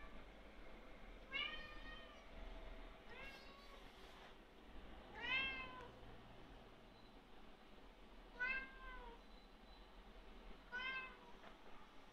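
Domestic cat meowing five times, a couple of seconds apart, each meow rising then falling in pitch; the one about five seconds in is the loudest.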